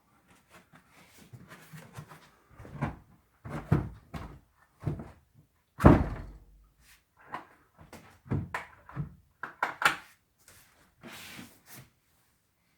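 Flooring-covered wooden trapdoor cover being handled: a string of irregular knocks and thuds, with one loud thud about six seconds in.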